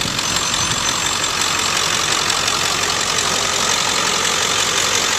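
Ford 7.3-litre Power Stroke turbo-diesel V8 idling steadily and smoothly.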